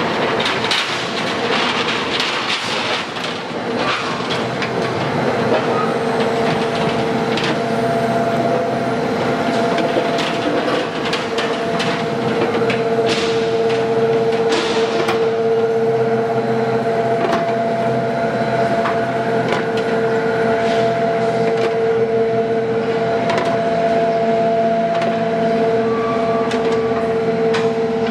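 Guardrail roll forming machine running, its galvanized steel strip passing through the forming rollers: a loud, steady mechanical hum, joined by a second higher tone about eight seconds in, with scattered clicks and metallic knocks throughout.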